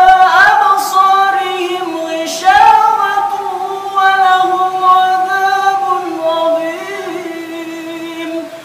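A young imam's solo voice chanting Quran recitation in a melodious, high-pitched style, drawing out long held notes that bend slowly. A new phrase starts about two and a half seconds in and another at about four seconds, and the line tails off near the end.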